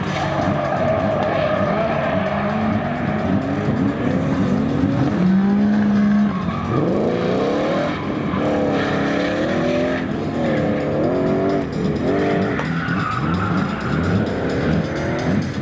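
Two drift cars' engines revving hard, their pitch repeatedly rising and falling and once held steady briefly, over the hiss and squeal of tyres sliding sideways.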